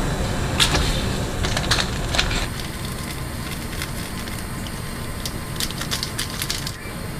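Udon broth boiling in a stainless steel pot on a gas stove, bubbling with scattered sharp crackles and ticks.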